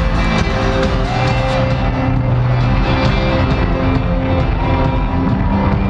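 Loud music at a concert with crowd noise underneath.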